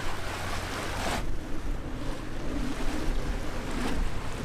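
Strong wind gusting on the microphone over water washing past the bow of a sailboat under way, with a steady low rumble underneath; the biggest gust comes about a second in.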